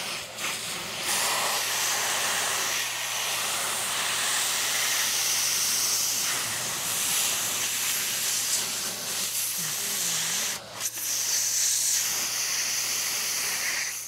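Air compressor: a loud, steady hiss of air over a low, even hum. There is a short break in the hiss about ten and a half seconds in.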